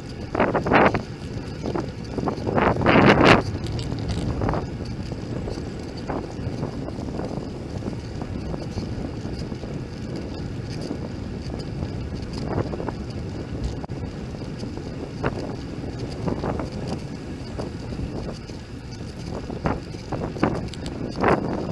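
Wind buffeting the microphone of a bicycle-mounted camera while riding, over a steady low rumble. A few short knocks and rattles cut through, the loudest about three seconds in and again near the end.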